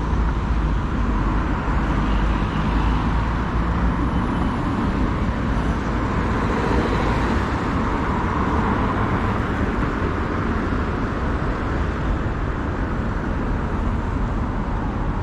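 Steady road traffic noise from cars passing on a city street, with a constant low rumble underneath; it swells a little about halfway through as a car goes by.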